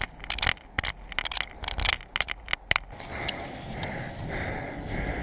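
Bicycle climbing a steep, rough road, heard from the handlebar: irregular crackling and scraping clicks for about three seconds, then a steadier rolling noise with a faint high whine.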